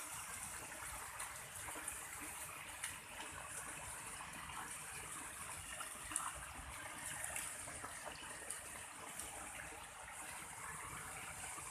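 Water pouring steadily over an artificial rock waterfall, a continuous splashing with small irregular splashes.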